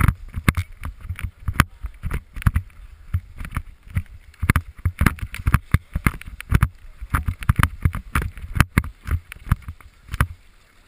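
Skis scraping and chattering over packed snow, with a rapid, irregular run of sharp knocks and a low rumble of wind buffeting on a helmet-mounted action camera.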